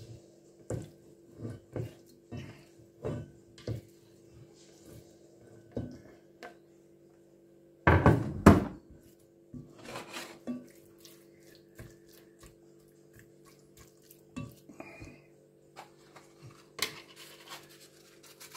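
Raw diced chicken being pushed off a wooden chopping board into a heavy pot with a silicone spoon: a run of soft knocks in the first four seconds, a louder clatter about eight seconds in, then scattered clicks as the pieces are spread around the pot. A steady low hum runs underneath.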